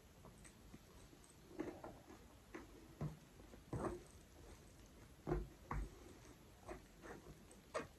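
Faint, scattered soft wet squishes and clicks, about ten of them, as fingers mash and mix palak dal with egg on a tray to gather a handful for eating.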